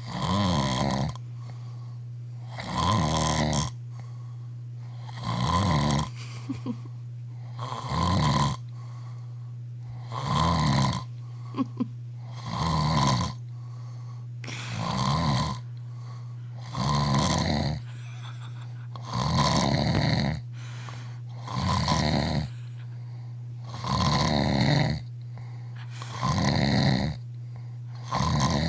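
A man snoring loudly in a slow, even rhythm, about one snore every two and a half seconds, over a steady low hum.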